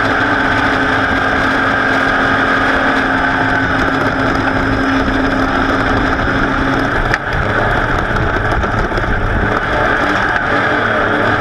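Race vehicle's engine running steadily under load, with heavy wind noise on an onboard microphone. A sharp click comes about seven seconds in, after which the steady engine tone shifts.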